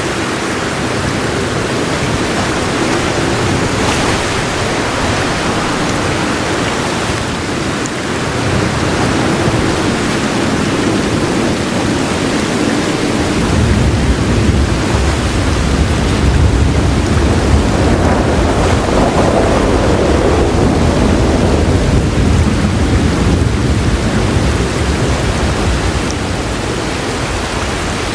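Heavy rain falling steadily as a dense hiss. About halfway through, a soft, low thunder roll comes in and rumbles for around twelve seconds before fading away near the end.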